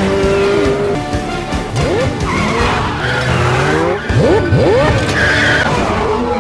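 Car engines revving and tyres squealing in a movie car chase, the pitch sweeping up and down, over a film score.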